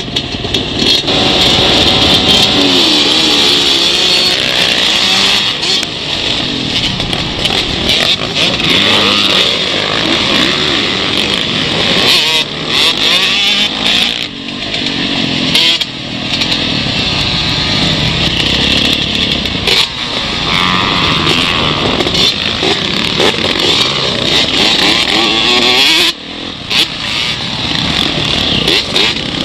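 Motocross dirt bikes racing, heard from on board one bike. Its engine revs hard and rises and falls in pitch through the gears, with other bikes' engines close by. The throttle comes off for a moment a few times.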